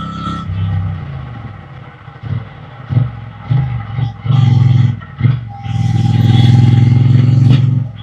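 Triumph Bonneville T120 parallel-twin motorcycle engine and exhaust on the move, giving a run of short throttle bursts, then a longer, steady pull near the end before the rider shuts off.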